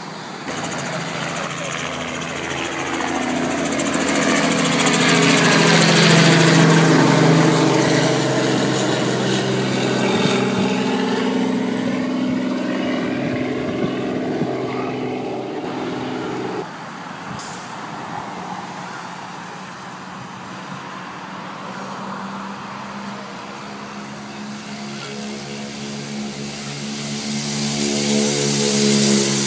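A motor vehicle's engine running: a steady engine hum that swells loudest about six seconds in, drops off suddenly partway through, and builds again near the end.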